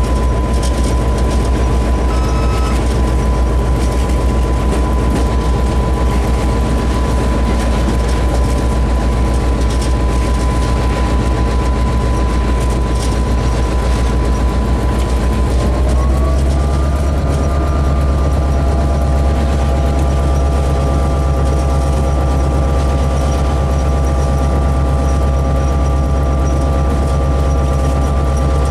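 Diesel locomotive running while the train moves, heard from its cab: a steady low engine drone with a thin whine above it. A little past halfway the engine note shifts up, the whine rising slightly in pitch, then holds steady.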